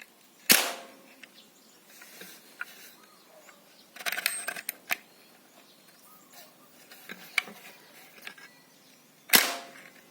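Homemade 8 mm PCP air gun fired twice, sharp cracks about half a second in and near the end, with clicks of the action being cocked and loaded in between. The builder blames a weak strike on a hammer spring that is too soft.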